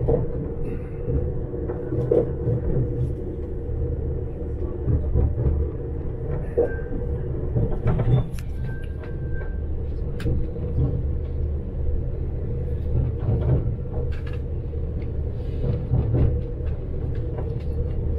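Moving train heard from inside the passenger carriage: a steady low rumble with a constant hum, broken by a few short clicks and knocks.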